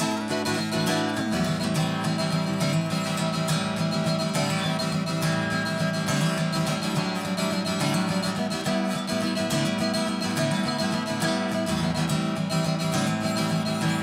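Taylor acoustic guitar played solo: an instrumental passage picked and strummed in a steady, continuous rhythm.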